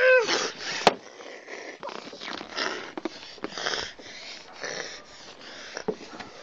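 A child's short pitched groan, then a series of breathy, hoarse rasps like growling or heavy breathing, repeated about once a second; a sharp knock about a second in.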